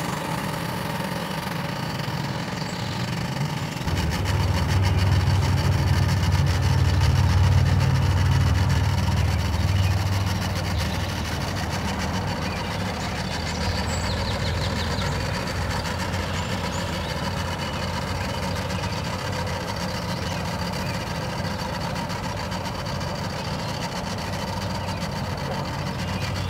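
Outboard motor of a small fishing boat running as the boat pulls away from the dock. The low engine sound grows louder about four seconds in, holds for several seconds, then settles back to a steady level.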